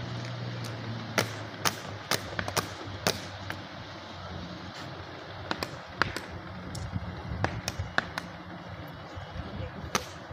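Soldiers' boots striking the road in sharp, irregular stamps during a border flag-lowering parade drill. Long, drawn-out shouted drill commands are heard with them, one in the first second and another from about four to eight seconds in.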